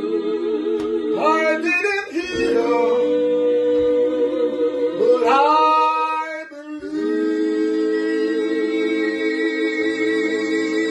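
Several voices singing a cappella in harmony, holding long notes, with a voice sliding up into higher notes about a second in and again about five seconds in.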